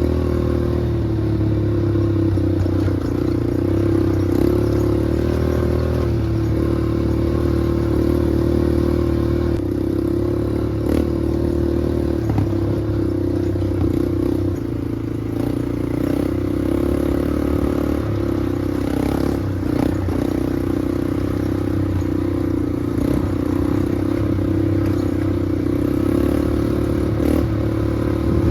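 Small off-road vehicle engine running at a fairly steady speed, its pitch shifting a little now and then, with scattered clattering knocks.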